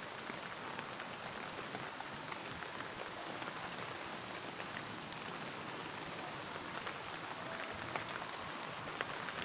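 Steady light rain falling on garden foliage and paving: an even hiss with scattered tiny drop ticks.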